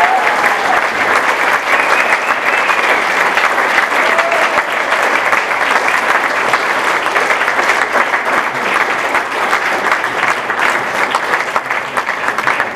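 Audience applauding steadily, dense clapping from a roomful of people, with a brief voice rising over it about two seconds in.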